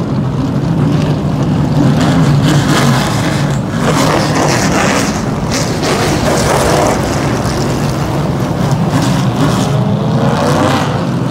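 A pack of super truck race trucks running past close by, many engines blending into one loud continuous drone. Engine notes rise and fall in pitch as individual trucks go by, most clearly in the later seconds.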